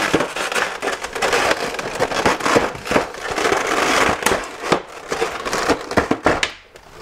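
Clear plastic blister packaging of a toy accessory set being pried apart and peeled off by hand: dense crinkling and crackling of stiff plastic with many sharp clicks and pops, briefly quieter just before the end.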